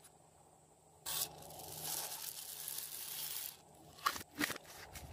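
Small foam beads pouring out of a plastic jar onto slime. A rustling hiss starts suddenly about a second in and lasts some two and a half seconds, followed by a few light clicks near the end.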